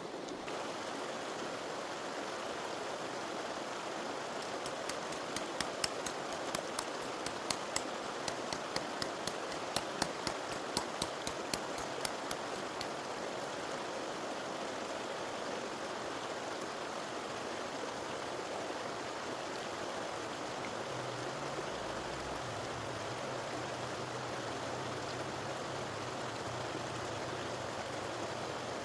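River water flowing steadily. A run of sharp clicks, about two a second, comes from about 4 to 12 seconds in, and a faint low hum joins near the end.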